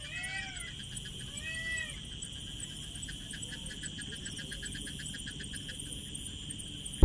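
Outdoor nature ambience: a steady high insect drone over a low rumble, with two short calls that rise and fall in the first two seconds, then a quick, even run of repeated chirps.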